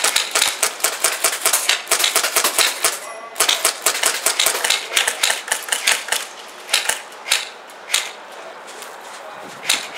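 Airsoft guns firing in rapid runs of sharp clicking shots, thinning to scattered single shots in the second half.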